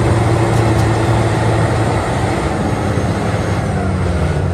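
Large crawler bulldozer's diesel engine running steadily as the machine pushes a load of earth with its blade.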